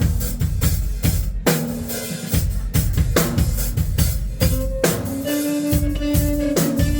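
Live rock band playing, recorded from the audience: a drum kit beats out a steady rhythm of kick and snare hits. About two-thirds of the way in, held instrument notes come in over the drums.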